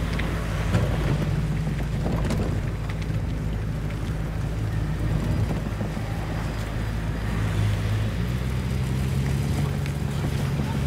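Towing vehicle's engine running with a steady low hum, mixed with wind buffeting the microphone and road noise as the boat is pulled on its trailer. A few light rattles come through, and the engine note shifts about eight seconds in.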